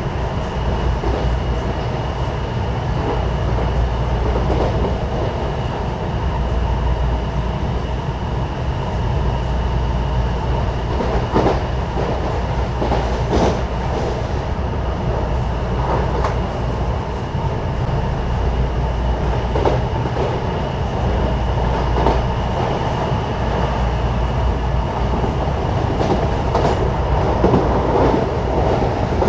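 Interior of a moving electric commuter train on CPTM Line 8: a steady low rumble of wheels on track with a thin, steady high whine over it, broken a few times by sharp clacks as the wheels cross rail joints.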